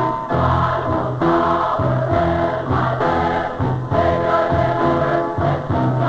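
A choir singing a gospel song with instrumental accompaniment and a steady bass line.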